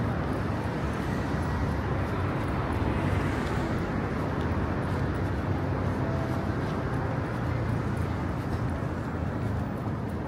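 Steady city street ambience: road traffic running with a general urban hum, no single sound standing out.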